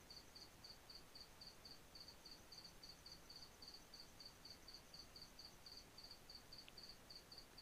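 Near silence: room tone with a faint insect chirping, a short high chirp repeated about four times a second, and one faint click near the end.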